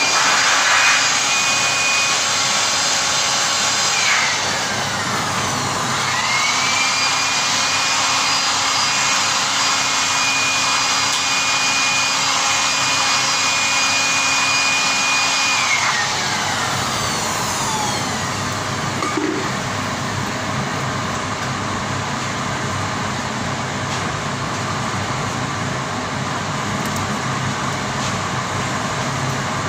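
Steady mechanical running noise, with a small electric motor spinning up to a high whine twice. The first run is cut off about four seconds in and winds down; the second runs for about ten seconds before it coasts down.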